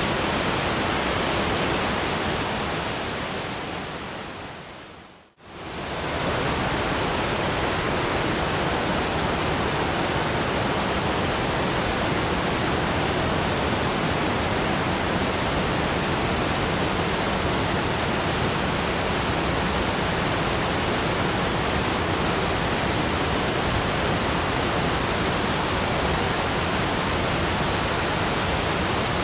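Steady, even rushing noise of waterfalls layered with brown noise. It fades down gradually to near silence about five seconds in, then comes back within a second and carries on unchanged.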